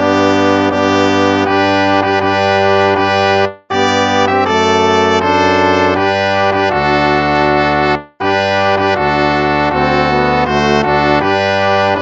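Instrumental hymn of praise played on brass in slow, sustained chords, phrase by phrase, breaking off into a brief silence twice between phrases.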